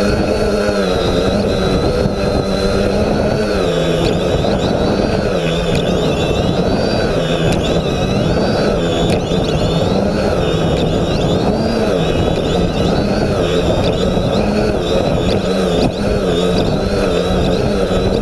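Quadcopter's electric motors and propellers running as heard from the onboard GoPro, the hum wavering up and down in pitch with throttle changes over a dense rushing noise.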